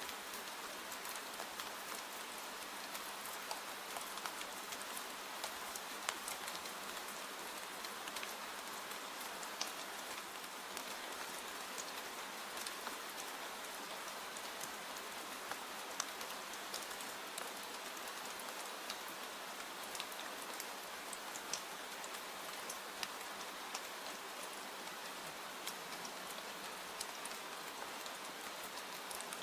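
Steady rain falling, an even hiss with frequent scattered sharp ticks.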